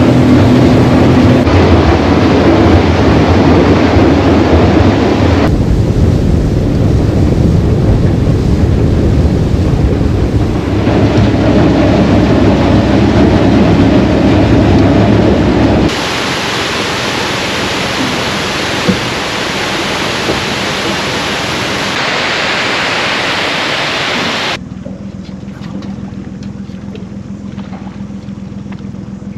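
Honda outboard motor running with the boat under way, with heavy wind and water rush over it for the first half. It cuts to a different rushing stretch, then near the end to a much quieter steady low hum.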